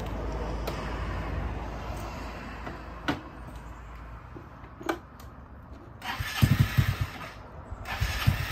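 Honda Helix scooter's 250 cc single-cylinder engine being started: two sharp clicks, then about six and a half seconds in it cranks and fires in a quick run of uneven pulses, pauses, and fires again near the end.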